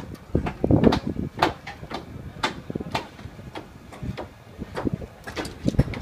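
Irregular knocks and clanks from a concrete pour, a crane-hung concrete bucket discharging into a steel column form, with a couple of low rumbles about a second in and near the end.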